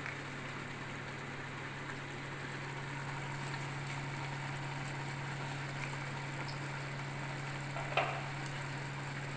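Lamb pieces cooking in tomato, yogurt and spices in a steel pot on a gas stove, with a steady sizzle over a constant low hum. One brief knock about eight seconds in.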